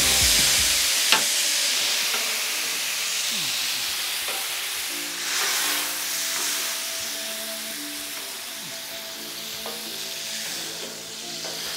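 Garlic butter sauce sizzling and bubbling on a hot flat-top griddle, loudest at the start and slowly dying down, with one sharp click about a second in. Quiet background music joins from about five seconds in.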